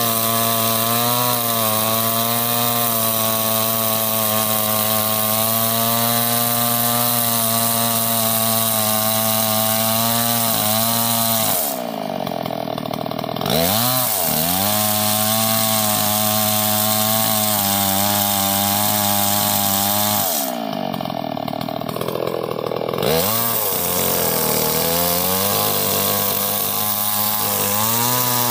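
Stihl MS381 two-stroke chainsaw running at full throttle while ripping lengthwise through a large log, its engine note steady under load. Twice, about 12 s and 21 s in, the chain comes off the cut: the engine note drops for a second or two, then revs back up.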